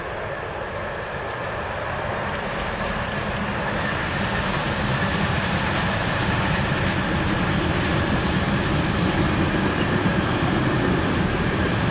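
Freight train of container wagons running past on the line, a steady rumble of wheels on rails that grows louder as the wagons come alongside. A few short clicks come in the first few seconds.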